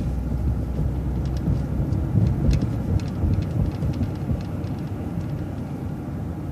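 City transit bus in motion, heard from inside: a steady low engine and road rumble with scattered sharp rattles and clicks.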